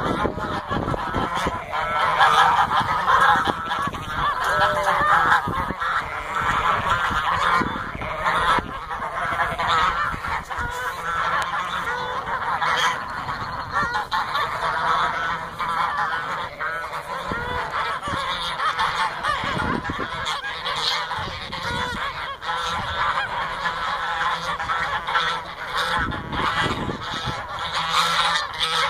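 A flock of domestic geese honking continuously, many overlapping calls at once: the adult flock's excited frenzy on taking in a brood of newly introduced goslings.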